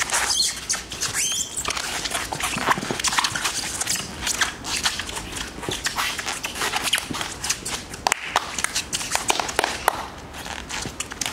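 Irregular, rapid clicking and knocking as feet land on and shift small square plastic stepping tiles.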